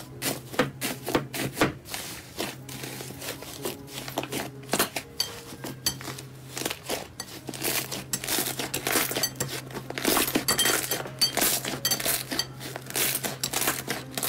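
Fingers pressing and kneading slime in a glass bowl: foil sheets laid over the slime crinkle at first, then the pink slime gives a dense run of small crackles and pops as it is squeezed.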